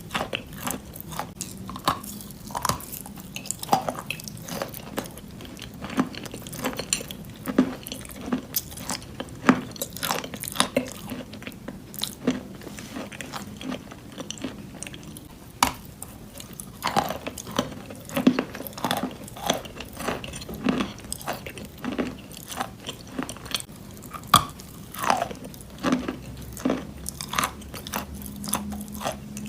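A person chewing and biting wet chalk in white clay paste, with irregular sharp crunches, often several a second, between softer pasty chewing.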